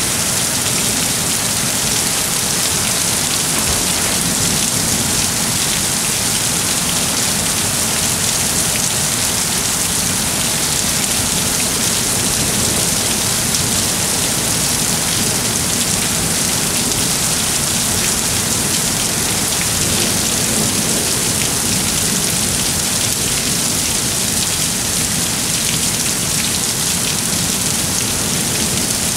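Heavy thunderstorm rain pouring steadily, an even, unbroken hiss.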